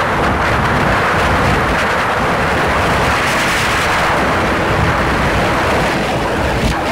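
Small boat running at speed on the plane: a 50 hp Mercury outboard running hard under a steady, loud rush of wind on the microphone and churning water, with a faint steady engine hum.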